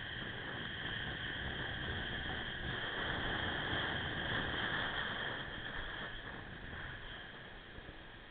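Suzuki Axelo motorcycle riding slowly, its engine and road noise heard as a steady hiss that swells midway and drops off near the end.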